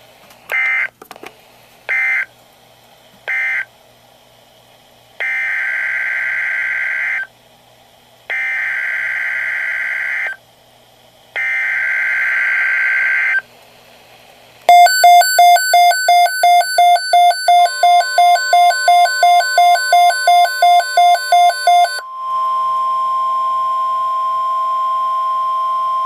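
NOAA Weather Radio digital alert data: three short screeching data bursts, which end the previous message, then three longer bursts of about two seconds each, which are the coded header of the next alert. A loud pulsing, warbling pattern of tones follows. About two-thirds of the way through, the steady 1050 Hz weather-radio alert tone starts and holds.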